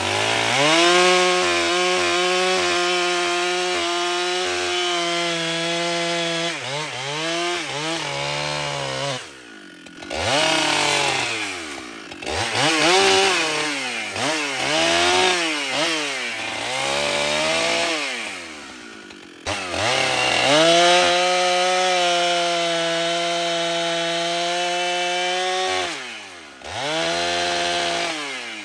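Husqvarna 395XP 94cc two-stroke chainsaw cutting through firewood rounds at full throttle, its pitch holding steady under load through long cuts. Between cuts the engine twice drops briefly toward idle and revs back up, with several shorter throttle dips and rises.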